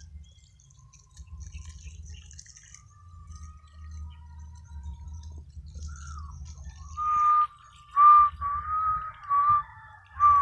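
A run of short, high whistle-like notes in the second half, five in a row with slight rises and falls in pitch, over a low rumble.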